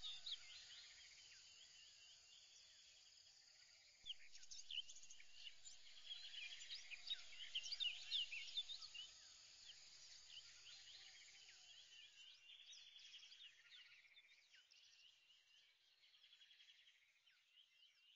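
Faint bird chirps and trills over a light hiss, busiest a few seconds in and fading away near the end.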